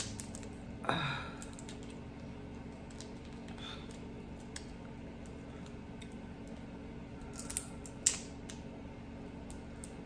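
Cooked shell-on shrimp being peeled by hand with long acrylic nails: scattered small clicks and crackles of shell, with a few louder ones about a second in and near eight seconds, over a faint steady hum.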